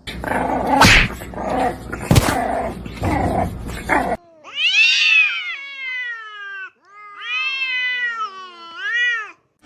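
A cat yowling: three wavering calls that rise and fall in pitch, the first two drawn out over a couple of seconds each and the last one short. Before the calls come a few seconds of noisy clatter with two sharp knocks.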